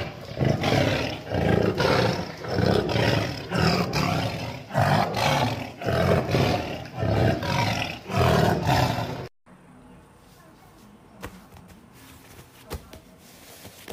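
White tiger giving a run of short, deep roaring growls, about one a second, that stop abruptly after about nine seconds. A faint, quiet room noise follows.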